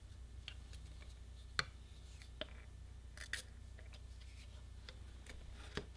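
Faint clicks and light knocks as a plastic pump-spray bottle and a PVC pipe are handled, with a short hiss of spray about three seconds in as activator is misted onto the pipe's end.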